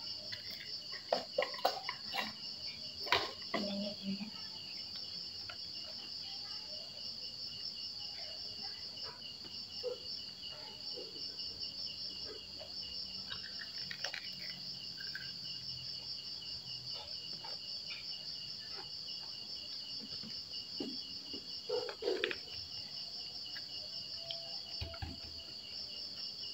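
Insects chirping steadily in a fast, pulsing high trill, with scattered brief clicks and soft knocks from children eating.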